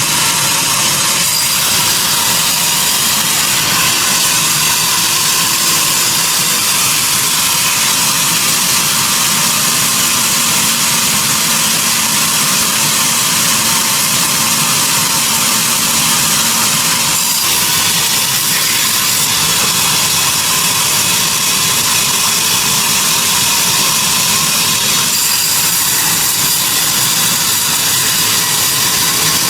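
Sawmill machinery running steadily with a loud, even noise, changing slightly in character about 17 and 25 seconds in.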